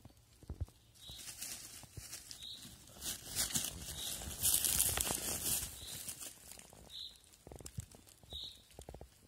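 Dry fallen leaves and twigs rustling and crackling while a freshly picked porcini mushroom is handled, with a louder burst of crunching through the middle and a few small snaps near the end.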